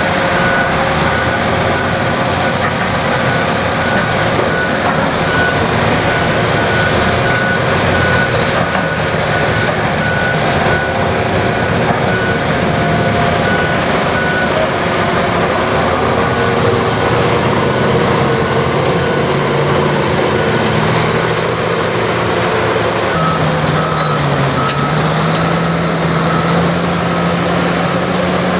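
Heavy diesel construction machinery working, with a backup alarm beeping in an even series for the first dozen seconds and again briefly about 23 seconds in. In the second half an engine's pitch climbs as it revs up under load.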